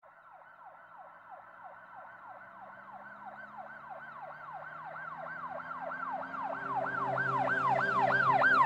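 Emergency vehicle siren in a fast yelp, sweeping up and down about three times a second. It grows steadily from faint to loud.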